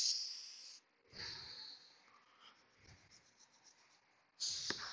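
Small bronze-bristle brush scrubbing brake dust off the brake caliper hardware: a few short hissy scratching passes with quick faint strokes between them, and a single click near the end.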